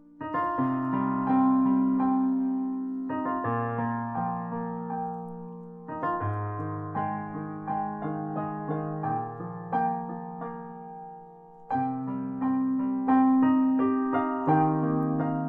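Solo piano music: slow sustained chords with a melody above. One phrase fades about eleven seconds in and the next begins with a fresh chord.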